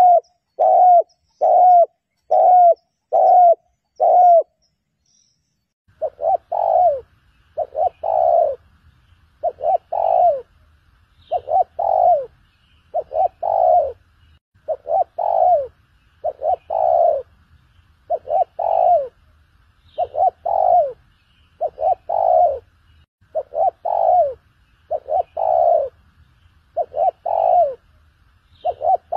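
Spotted dove cooing: a string of short, loud coos at an even pace, a pause of about a second and a half, then the coos resume more spaced out, often in pairs, over a faint low hum.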